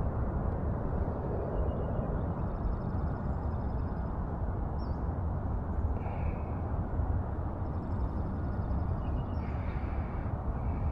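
Steady low outdoor rumble with faint bird calls over it: a rapid high trill twice and a few short calls.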